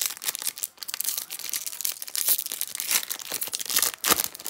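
Foil wrapper of an Upper Deck Allure hockey card pack crinkling and tearing as it is ripped open by hand: a dense run of irregular crackles, the sharpest about four seconds in.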